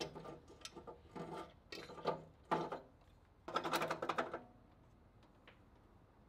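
A hand ratchet wrench being worked in several short bursts of rapid clicking, the last and longest about three and a half seconds in, while the turbocharger is bolted onto a Subaru STI engine. It then stops.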